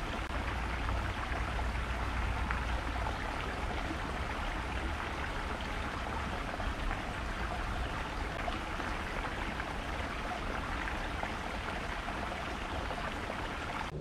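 Shallow creek water running over small rocks: a steady, even rush of water, with a low rumble underneath.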